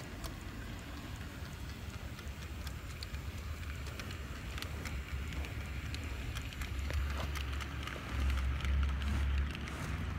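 Brass HO-scale model of a D&RGW K-37 steam locomotive running on its track: wheels and valve gear rattling, with many small clicks along the rails. A low rumble swells about eight seconds in as the train rolls past.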